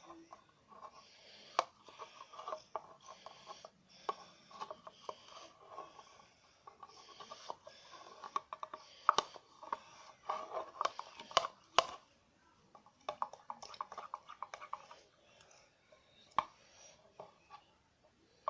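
Homemade slime being squeezed and kneaded by hand, giving irregular wet squelches and sticky clicking crackles, with a few sharper pops along the way.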